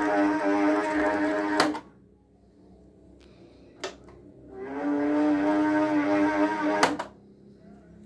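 Fresh box fan's motor running with a loud, steady hum, the noise the fan is to be fixed for. It cuts off with a click about two seconds in, hums up again about four and a half seconds in, and stops with another click about seven seconds in.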